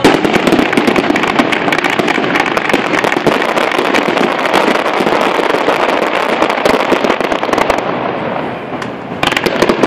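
Fireworks display: a dense, continuous barrage of pops and crackles from many shells bursting at once. It eases off about eight seconds in, then a fresh volley of bangs starts near the end.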